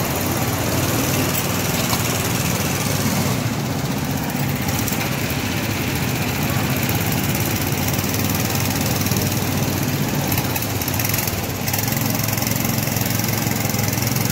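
Go-kart engines running steadily as several karts circle the track, a continuous small-engine noise.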